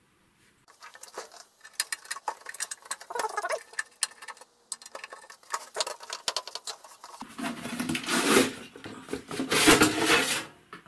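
Black metal case of a Bendix TRA-61A transponder being handled and slid off its aluminium chassis: a run of small clicks and rattles, then louder metal-on-metal scraping over the last few seconds as the case slides free.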